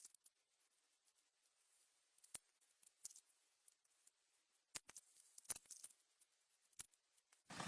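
Faint, irregular sharp clicks and small snaps, a dozen or so scattered through near quiet, more of them in the second half.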